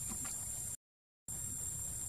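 Steady high-pitched insect drone of forest ambience, broken by a half-second gap of complete silence about a second in, where the recording cuts out.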